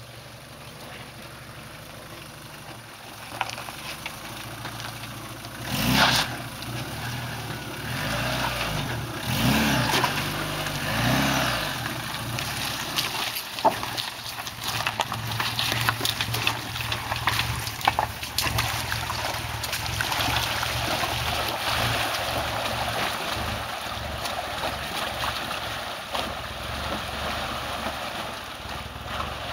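Suzuki Swift hatchback's small engine revving up and down as it crawls over rocks on a rough bush track, with tyres crunching over stones, then running on steadily as the car drives through a shallow creek crossing.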